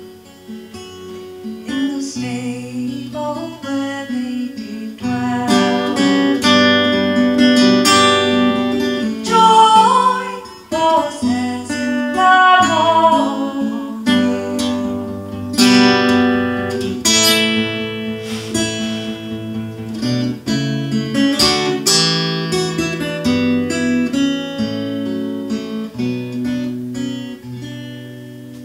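Live solo acoustic guitar, strummed and picked, with a woman singing over it in places; the playing fades away near the end.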